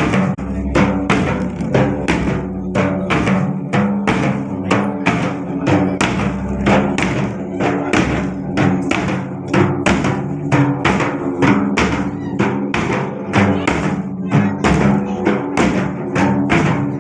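Dhol drums beating a steady, fast rhythm of about three strokes a second, with a held melodic tone underneath.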